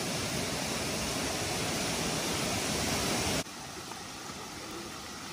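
Laurel Falls, a 40 ft waterfall, rushing steadily into its pool. The sound drops suddenly to a softer rush about three and a half seconds in.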